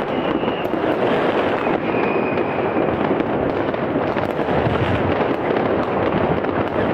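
Many fireworks and firecrackers going off at once: a dense, steady din of bangs and crackles, with a faint whistle or two in the first two seconds.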